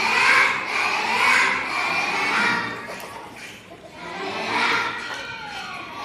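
A large group of kindergarten children voicing together in unison on stage, loud and lively; the voices ease off about three and a half seconds in, then come back up.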